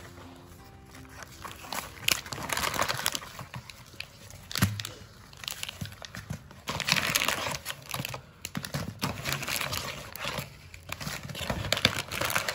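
Plastic-foil instant coffee stick sachets crinkling and rustling as they are handled and pulled out of a cardboard carton, in irregular bursts with a few sharp clicks.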